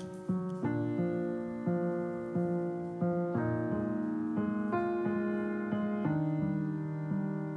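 Background piano music: a gentle melody of sustained notes, each new note sounding every half second or so.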